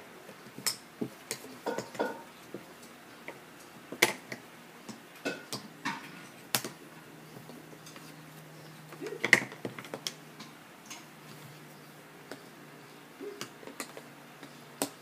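Jigsaw puzzle pieces tapping and clicking against a table and the puzzle board as a toddler picks them up and fits them in: scattered sharp clicks, irregular, the loudest about four and nine seconds in.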